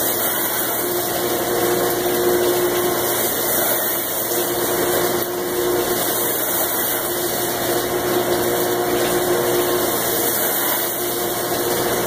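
Commercial hood-type dishwasher running with its hood raised, its magnetic door switch bypassed: the pump hums steadily under a constant hiss of water spraying out of the open wash chamber onto the stainless steel.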